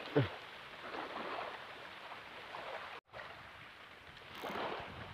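Small waves lapping and washing up on a sandy shore, swelling again near the end. A short squeak falling sharply in pitch cuts in about a quarter second in, and the sound drops out for an instant about three seconds in.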